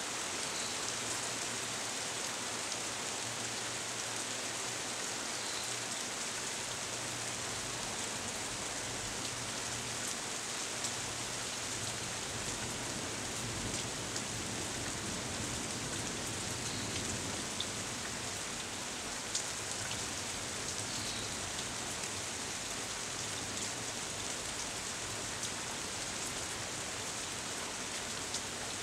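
Steady rain shower falling on tree leaves: an even hiss of rain with scattered drop taps, a few of them louder and sharper.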